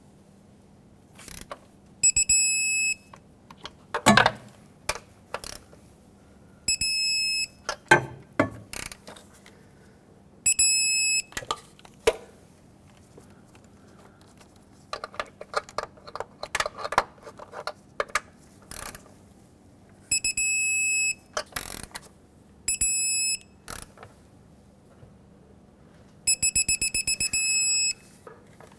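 Electronic torque wrench beeping as each valve cover bolt reaches its 89 inch-pound setting: six steady high beeps of about a second each, the last one near the end pulsing rapidly. Ratchet clicks and clunks come between the beeps.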